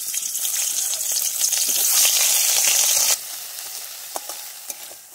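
Chopped onion, chilli and garlic sizzling loudly in hot oil in a wok. The sizzle drops sharply about three seconds in and goes on softer, with a few scrapes of a metal spatula against the pan.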